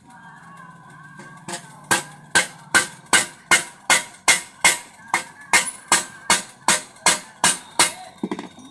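Hammer blows on metal in an even rhythm of about sixteen sharp strikes, roughly three a second, starting a second and a half in.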